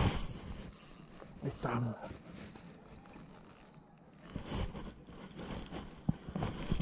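Ultralight spinning reel being cranked to bring in a hooked peacock bass, its gears clicking, with a sharp knock right at the start and thicker clicking in the last couple of seconds.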